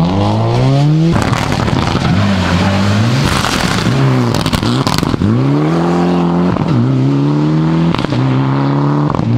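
Rally car engines at full throttle: a Subaru Impreza pulling away with rising revs, then a Mitsubishi Lancer Evolution X slowing with falling revs and accelerating hard again through several quick upshifts, the pitch climbing and dropping back at each shift. A few sharp pops and crackles come in between.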